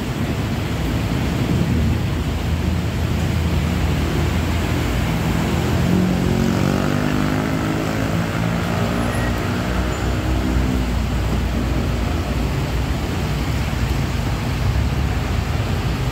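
A vehicle's engine passing through floodwater, swelling from about four seconds in and fading away by about eleven seconds, over a steady rushing noise of rain and water.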